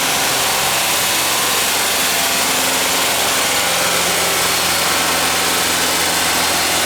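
Volkswagen T3 Westfalia's water-cooled boxer four-cylinder engine idling steadily on its first cold start after a cylinder head replacement. Its hydraulic-lifter tapping is quieting as the pumped-down lifters fill with oil.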